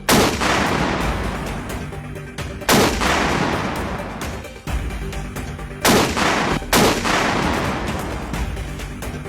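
Sharp, loud blasts, four in all, each falling away over a second or two, from a shoulder-launched missile system being fired, over background music.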